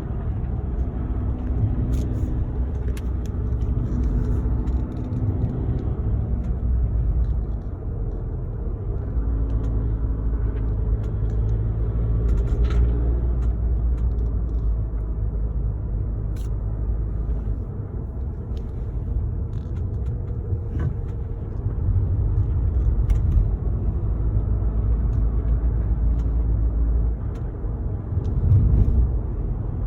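A car being driven: steady low road and engine rumble that swells and eases, with a few faint ticks.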